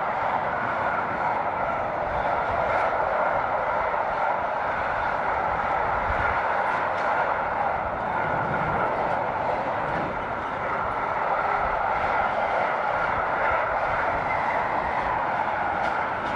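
Freight train of box wagons rolling steadily past: a continuous rumbling rush of steel wheels on rail, with a faint irregular clatter as the wagons go by.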